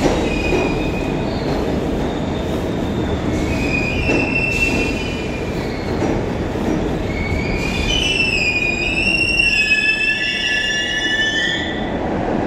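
New York subway train running on the tracks through the station: a steady rumble with high wheel squeal, brief about four seconds in and loudest as several wavering shrill tones from about eight to twelve seconds.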